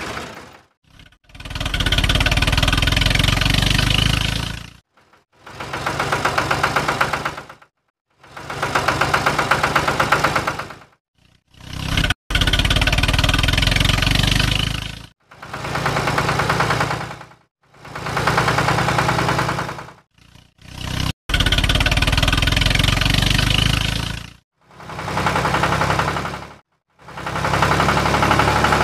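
Tractor engine running with a fast even putter, heard in about nine separate stretches of two to three seconds that each fade in and out, with short silent gaps between them.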